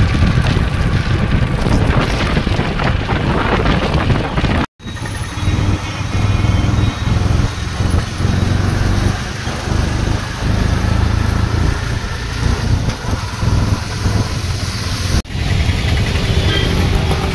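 Auto-rickshaw engine running during a ride, with wind buffeting the microphone in the first few seconds. The sound drops out abruptly twice, about five and fifteen seconds in.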